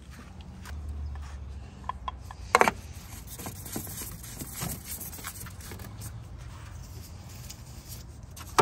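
Oil filter cartridge and cap being fitted into the engine's filter housing and screwed in by hand: light rubbing and scattered small clicks, with one sharper knock about two and a half seconds in.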